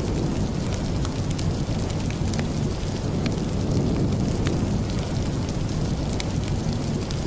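Steady rain with a deep, even rumble underneath, and scattered light ticks on top.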